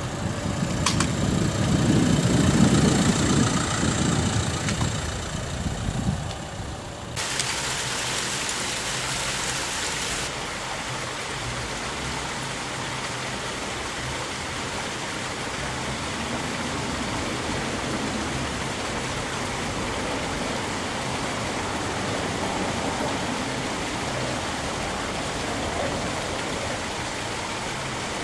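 A Renault Captur driving past, its engine and tyre noise swelling and then fading over the first six seconds or so. From about seven seconds in, a steady rushing hiss of outdoor noise takes over.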